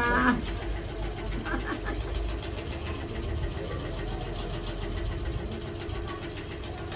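A steady low mechanical hum, like a motor running, with a few faint words near the start.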